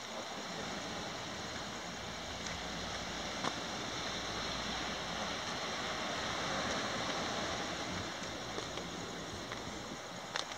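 Steady wash of sea surf, swelling slightly in the middle, with a few faint clicks.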